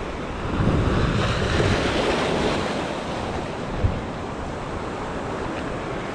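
Sea waves breaking and washing over shore rocks, with wind buffeting the microphone. The surf swells about a second in, and there is a brief thump near the middle.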